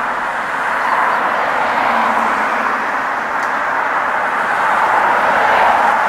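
Steady rushing noise of road traffic from passing vehicles, growing slightly louder near the end.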